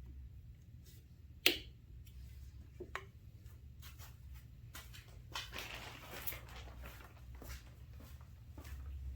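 Scattered light clicks and taps of hands handling small engine parts and tools, with one sharper click about a second and a half in and a brief rustle around six seconds in, over a low steady hum.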